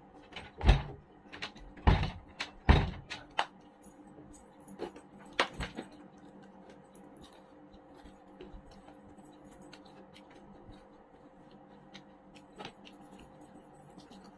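Eating by hand from a plastic plate: a handful of sharp knocks and taps in the first six seconds as the hand works the food on the plate, then only faint clicks of chewing and handling.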